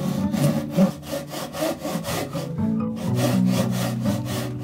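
A saw cutting wood in quick, regular strokes, about four a second, over background music with sustained low notes.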